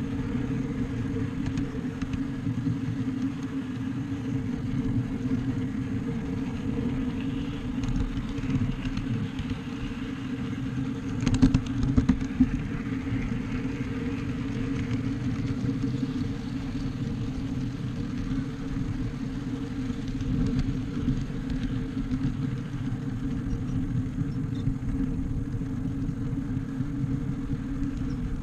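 Ride-on scale train running steadily along its track: a continuous rumble with a steady hum from the locomotive and wheels, broken by a short cluster of sharp clicks about eleven seconds in.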